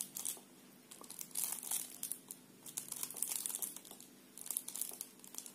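Irregular crackling and rustling handling noise, like something crinkled close to the microphone, over a faint steady low hum.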